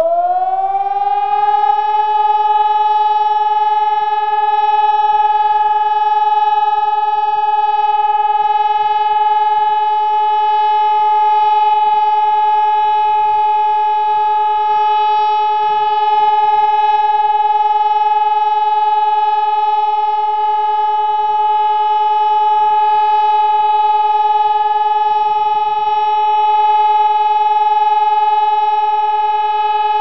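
ECN600 electronic civil-defence siren sounding the German 'Entwarnung' (all-clear) signal. Its pitch rises over the first second or two, then it holds one steady, continuous tone.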